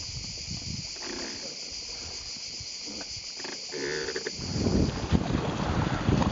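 Steady high buzzing of insects in a still anchorage. About four seconds in it gives way to wind on the microphone and water rushing past the hull of a boat under way.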